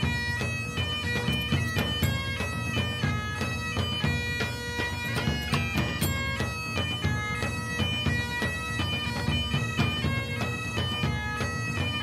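Background bagpipe music: a quick melody of short changing notes over a steady drone.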